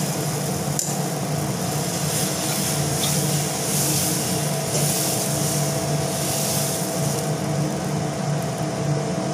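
Dosa batter sizzling on a hot dosa griddle, a steady hiss that swells in the middle, over a steady hum.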